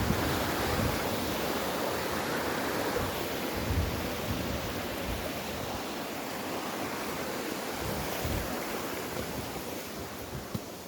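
Waterfall: the steady rush of falling water, with wind buffeting the microphone in low thumps. It grows slowly fainter toward the end.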